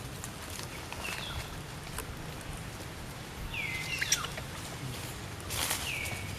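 A baby monkey giving short, high squeaky calls that slide down in pitch, three or four times, against light rustling and scattered clicks.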